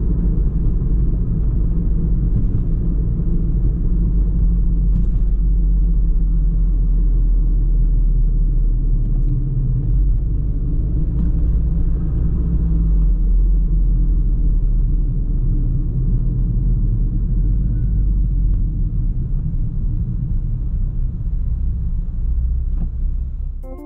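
VW Golf R 7.5's turbocharged 2.0-litre four-cylinder and its tyres on the road while driving: a steady low rumble that eases slightly in the last second.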